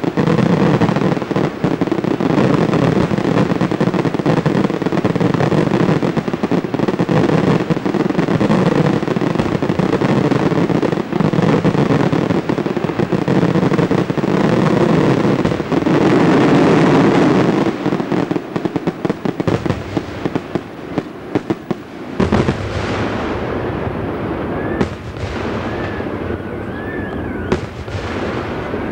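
Fireworks closing barrage: a dense, continuous rattle of aerial shell bursts and crackle, thinning to scattered single bangs after about eighteen seconds and dying away a few seconds later. Near the end a wavering, siren-like tone starts rising and falling.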